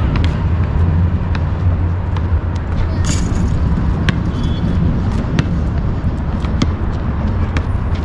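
Basketball bouncing on an asphalt court, sharp knocks about once a second, over a steady low rumble.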